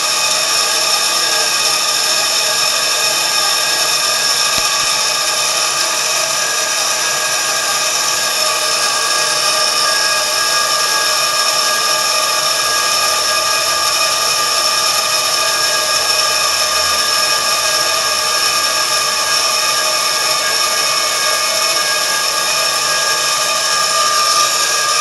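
2001 Bauer high-pressure air compressor running steadily: a loud, even machine whine over a hiss, with several held tones.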